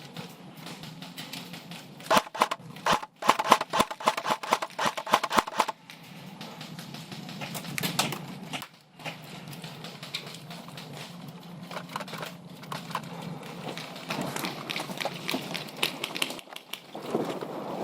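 Airsoft electric guns firing in rapid runs of sharp clicks, densest between about two and six seconds in.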